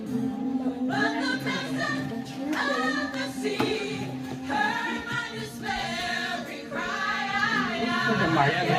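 A choir singing a gospel song over a held low accompanying note.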